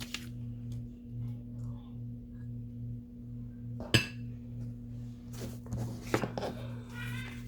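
Paper and craft pieces being handled and shuffled on a work table, with a sharp tap about four seconds in and a flurry of rustling near the end, over a steady low hum.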